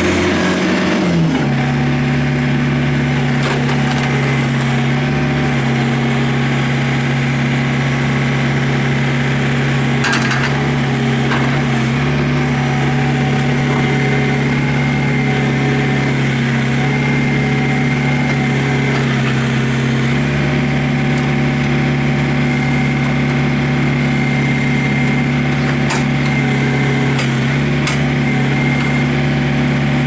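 Diesel engine of a John Deere 110 tractor loader backhoe running steadily while the machine is maneuvered slowly. About a second in the engine speed drops, then holds at the lower speed.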